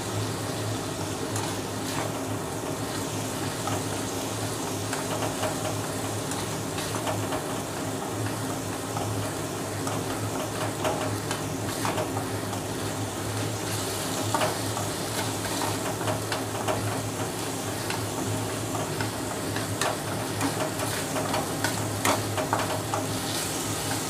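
Ginger-garlic paste sizzling in hot oil in an iron kadai, stirred and scraped with a metal spatula: a steady hiss of frying broken by frequent small scrapes and taps of the spatula, busier in the second half, over a steady low hum.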